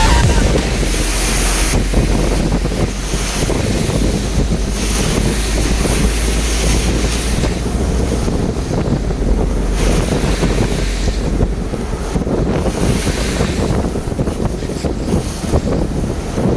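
Strong wind buffeting the microphone: a loud, steady rushing rumble that swells and eases every few seconds.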